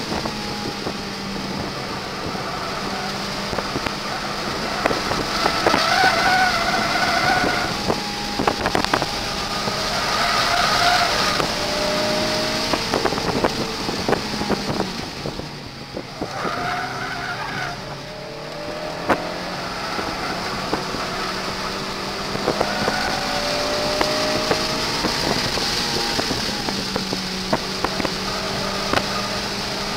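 Honda Civic Si engine heard from inside the cabin at high revs on a track lap, its pitch climbing again and again as it pulls through the gears. Tires squeal in short spells through the corners, and the engine quietens briefly about halfway through.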